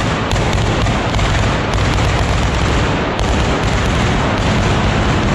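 Fireworks and firecrackers going off on the bursting cart: a loud, dense, unbroken barrage of bangs and crackling.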